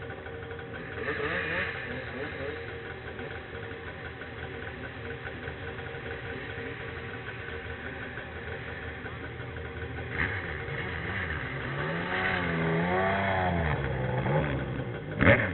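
Snowmobile engine running at a steady pitch, then revving up and down a couple of times about twelve seconds in, with a brief louder burst near the end.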